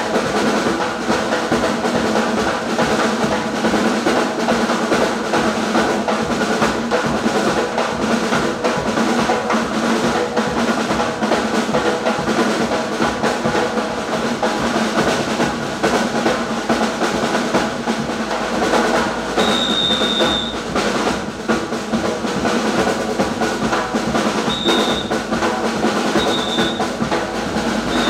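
Gombey drummers playing snare drums and a bass drum in a fast, continuous rhythm with rolls. A high whistle sounds once for about a second roughly two-thirds of the way through, then three short blasts near the end.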